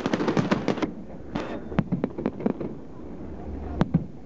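Fireworks going off: a dense run of rapid crackling bangs for about the first second, then scattered single pops and bangs, with a louder pair near the end.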